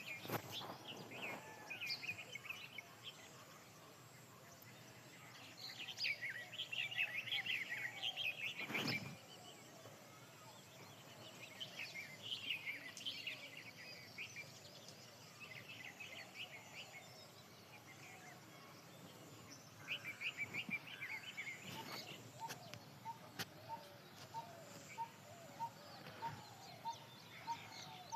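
Small birds chirping and twittering in bursts of quick high notes, with one bird repeating a short note about one and a half times a second near the end. A couple of sharp knocks come through, one about nine seconds in and one about two-thirds of the way through.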